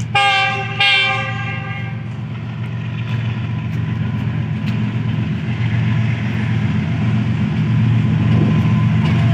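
A Pakistan Railways GE U40 diesel-electric locomotive sounds its horn twice at the start, a short blast then a longer one. Its engine then drones low and steady, growing louder as the train approaches.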